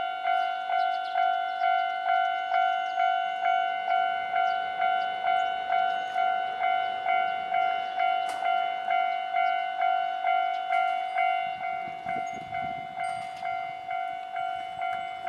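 Railway level-crossing warning bell ringing steadily, about two strikes a second, signalling that a tram is approaching the crossing. It grows a little softer in the last few seconds.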